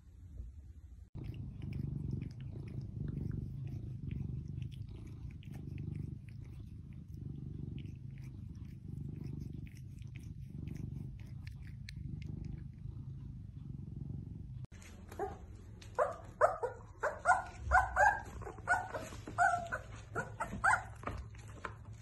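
A cat purring in a steady, pulsing low rumble; then, after a cut about three-quarters of the way in, puppies whimpering in a string of short, high-pitched cries.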